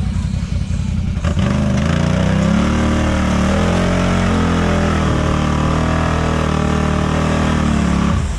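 Mud-racing vehicle's engine at wide-open throttle: from about a second in the revs climb sharply, waver, then hold high and steady, dropping off suddenly at the very end.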